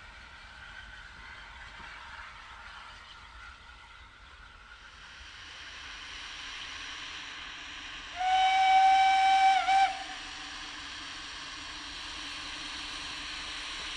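Steam locomotive whistle: one blast about a second and a half long, its pitch sagging just before it cuts off. It is sounded at a 'SW' (sound whistle) board as the locomotive approaches a foot crossing, over the rising noise of the locomotive drawing near.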